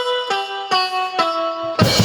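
Instrumental music: a few separate notes on a plucked-sounding instrument or keyboard voice, stepping down in pitch, then a drum kit comes in with a loud hit near the end.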